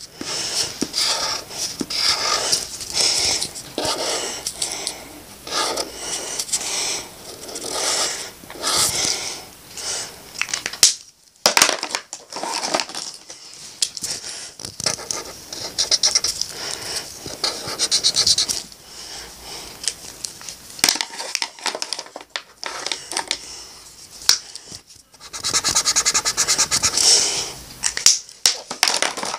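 Felt-tip marker drawing on paper: quick scratchy strokes back and forth, with a short pause about a third of the way in and a longer lull later, then a dense run of fast strokes near the end.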